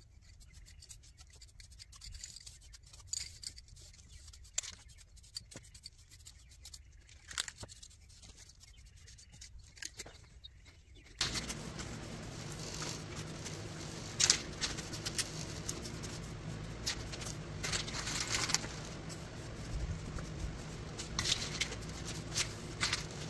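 Aerosol spray can of self-etching primer spraying in several short hissing bursts over a steady low hum. Before that, about the first ten seconds hold only faint scattered clicks.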